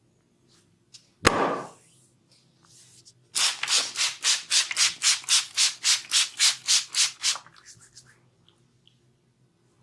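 Massage hands rubbing briskly back and forth over bare skin, about five strokes a second for some four seconds. A single sharp smack comes about a second in.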